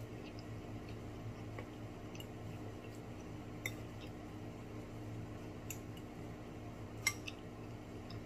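Someone eating fried lobster: soft, wet chewing with a few sharp clicks, the loudest about seven seconds in, over a steady low hum.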